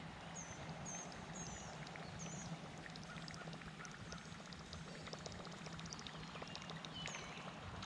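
Faint pond ambience just after rain: scattered light ticks and drips over a steady low hum, with a bird chirping briefly about seven seconds in.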